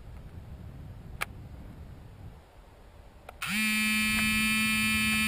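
A single sharp click about a second in, then about three and a half seconds in a steady, flat electronic buzzing tone that holds for about two seconds and stops at the end.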